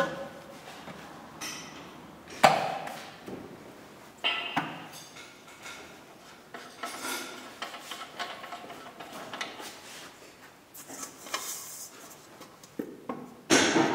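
Metal parts being handled by hand: scattered clinks and knocks, the sharpest about two and a half seconds in, with rustling between them and louder handling noise near the end.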